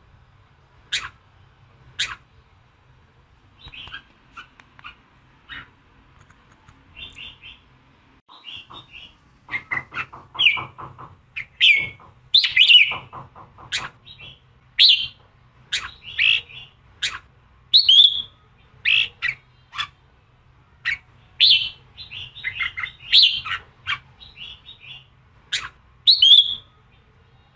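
Red-whiskered bulbul singing a fired-up, combative song in short, sharp phrases and chatters. The song is sparse at first and comes thick and loud from about ten seconds in. This is the 'giọng kình' song type that is played to train and provoke captive bulbuls.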